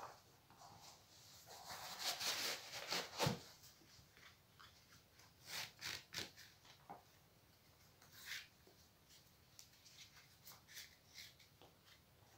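Faint rustling and scraping of hands handling knit-mesh sneakers and pulling shoelaces through the eyelets as the shoes are put on and laced, with small clicks; the loudest stretch of rubbing comes about two to three and a half seconds in.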